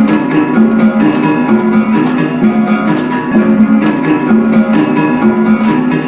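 Dance music with a plucked-string melody repeating short figures over a steady, sharp percussive beat.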